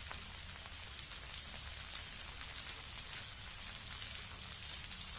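Sliced shallots, green chillies and tomatoes sizzling steadily in hot oil in a wok, with a few sharp pops.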